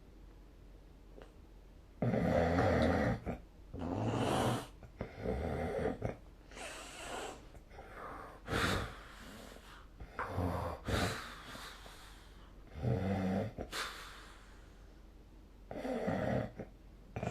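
A sleeping person snoring: about nine loud, rasping snores and snorting breaths at irregular intervals, starting about two seconds in.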